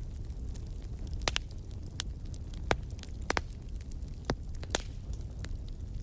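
Wood fire crackling: irregular sharp pops and snaps, about seven in six seconds, over a steady low rumble.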